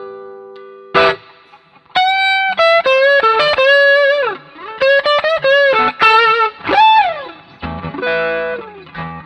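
Fender Stratocaster played through a TRIAL PockeTS Tube Screamer-style overdrive pedal into a Fender Twin Reverb amp. A held note fades out, a chord is struck about a second in, then a single-note lead line follows with several string bends, closing on chords.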